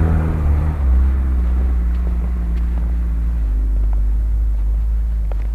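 Off-road car's engine running with a deep, low rumble; the revs shift about a second in and then hold steady.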